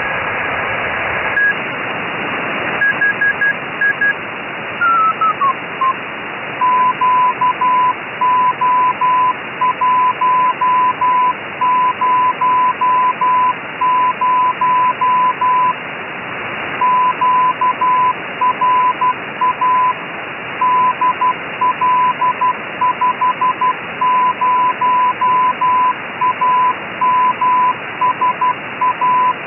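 Morse code (CW) signal on the QO-100 satellite's narrowband transponder, heard through an SSB receiver as a keyed tone of about 1 kHz, in short and long elements, over steady receiver hiss. In the first seconds a higher tone breaks off. Then a tone slides down in pitch as the receiver is tuned onto the signal, and the keying runs from about six seconds in, with one short pause midway.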